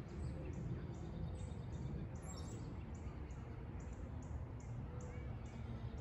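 Outdoor garden ambience: a steady low rumble with faint, high bird chirps repeating about two to three times a second.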